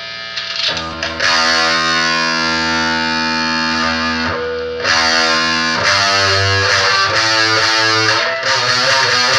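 Electric guitar played through distortion: a chord rings out held for a few seconds, then chords are struck again in a repeated rhythm from about six seconds in.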